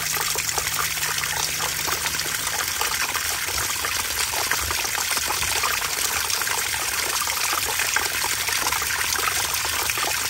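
Water running steadily from a Woodford hot-and-cold frost-free wall faucet with the hot side open, splashing over a hand and onto the ground below.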